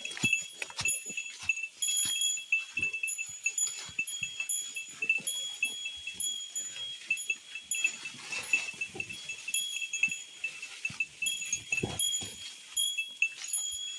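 Hiker's footsteps on a steep mountain trail: irregular steps and scuffs, several a second, with no let-up.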